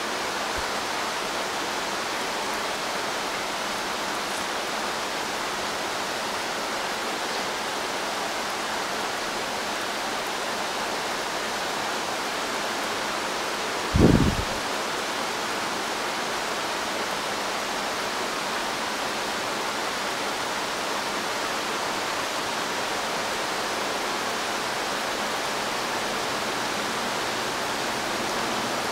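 Heavy rain falling steadily on forest foliage, a constant even hiss. A single brief low thump halfway through.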